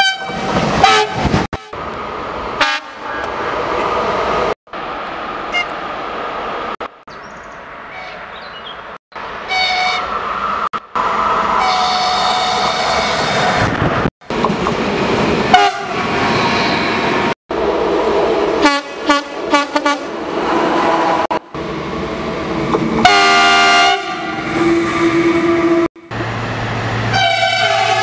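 Trains passing through a station sounding their horns: a string of short clips, each with steady multi-tone horn blasts over the rushing and rumbling of the train going by. The sound breaks off abruptly many times where one clip cuts to the next, and the loudest horn blast comes a few seconds before the end.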